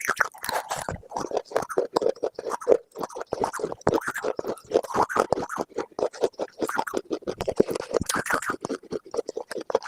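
Close-miked crunching: a dense, irregular run of crisp crackles and crunches, several a second without a break.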